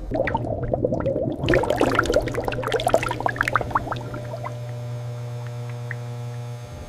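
Liquid pouring and splashing for about four seconds, then dying away, over steady background music.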